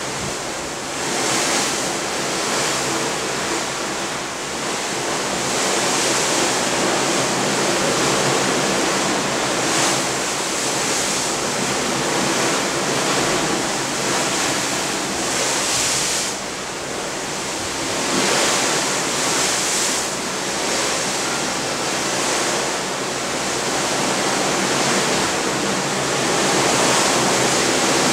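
Waves breaking off the bow of a large cruise ship under way: a steady rushing wash of water that swells and eases every few seconds.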